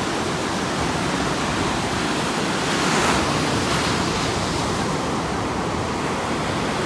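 Ocean surf breaking on a sandy beach: a steady rush, with one wave breaking louder about three seconds in.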